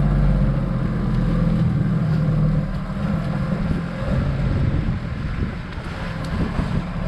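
Boat engine running with a steady low drone under the glass-bottom boat's hull. About two and a half seconds in, the even drone gives way to a rougher, unsteady low rumble with water noise.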